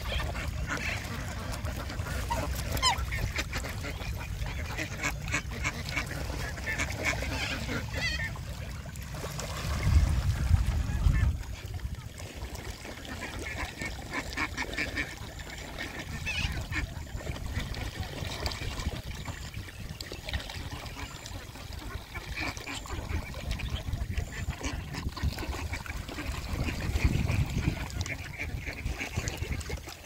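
Geese honking, with duck calls among them, in repeated short calls. A low rumble comes in about ten seconds in, the loudest moment, and again more weakly near the end.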